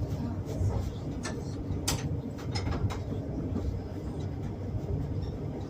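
Passenger train running on old jointed, unwelded track, heard from inside a compartment car: a steady low rumble with several sharp clicks as the wheels pass over rail joints, bunched in the first half.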